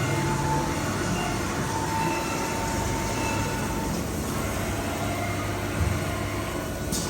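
Haas TM-2P CNC toolroom mill running, a steady machine hum with faint whining tones that change pitch as it moves. A short sharp hiss comes near the end.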